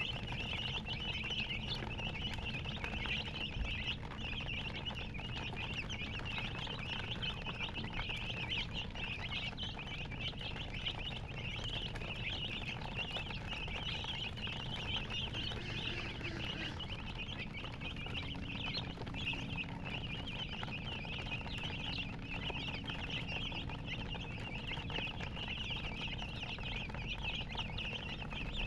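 A brood of baby chicks peeping continuously, many high chirps overlapping into a steady chatter.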